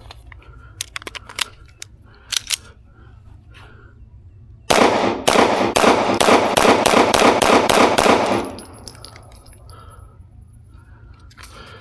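A rapid string of about a dozen 9mm semi-automatic pistol shots fired over nearly four seconds, preceded by a few sharp clicks.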